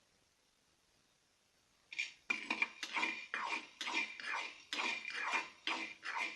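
A spatula stirring and scraping black peppercorns as they dry-roast in a kadai: about three short scraping strokes a second, starting about two seconds in after near silence.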